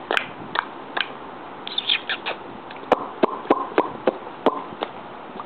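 A string of short mouth clicks and chirpy squeaks, about a dozen, irregularly spaced with a quick cluster about two seconds in, the kind of kissy, clicking noises made to amuse a baby.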